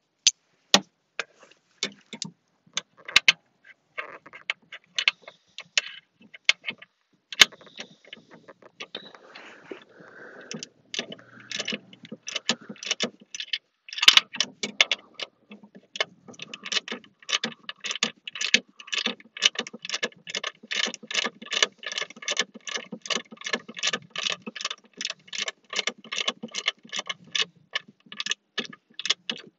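Socket ratchet wrench clicking as a bolt is run in: scattered clicks and clinks at first, then from about halfway through a steady run of clicks, about four a second.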